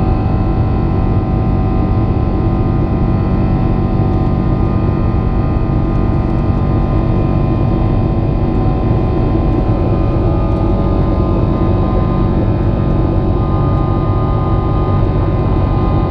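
Airliner engines running steadily after takeoff: a constant low rumble with several unchanging whining tones above it.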